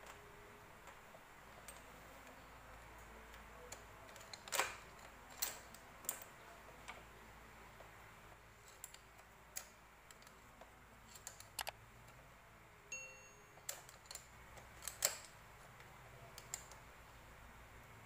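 Sparse, irregular metallic clicks and clinks of hand tools working on a Yamaha Jupiter Z motorcycle engine's cylinder head during disassembly. A brief high ding sounds about two-thirds of the way through.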